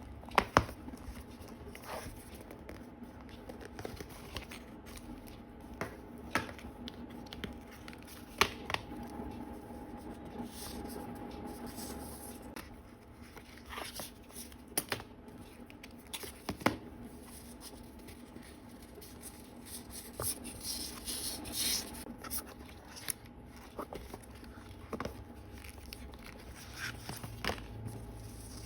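Sticker packaging being opened and handled by hand: paper and plastic crinkling and tearing, with scattered sharp taps and clicks.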